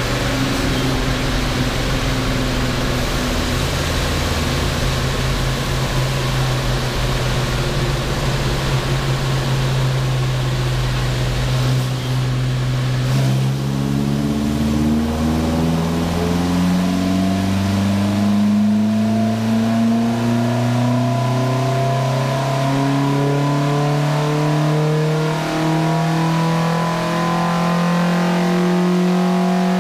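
Volvo B20 four-cylinder engine with twin Weber 45 carburettors and a freer 2-inch sport exhaust, running on a chassis dyno for a power run. It holds a steady speed for about twelve seconds, then pulls, with engine speed climbing steadily to the end.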